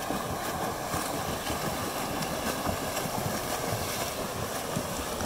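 Several swimmers splashing through a freestyle race: a steady churn of water from arm strokes and kicks across the lanes.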